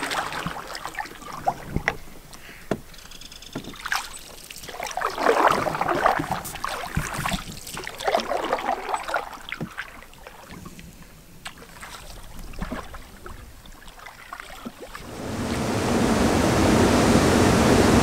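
Canoe paddles pulling through river water in uneven swishing strokes, with occasional sharp knocks. About fifteen seconds in, a louder, steady rush of fast-moving water from the river's chutes takes over.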